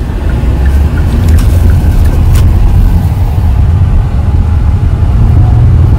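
Car driving along a road, heard from inside the cabin: a loud, steady low rumble of road and wind noise.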